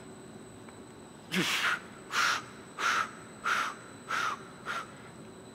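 A weightlifter's forceful exhalations: six in quick succession about two-thirds of a second apart, one with each rep of a set of two-arm dumbbell rows, growing shorter toward the end.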